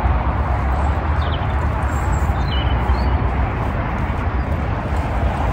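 Steady outdoor background noise: a low rumble of wind on the microphone and distant motorway traffic, with a few faint bird chirps between about one and three seconds in.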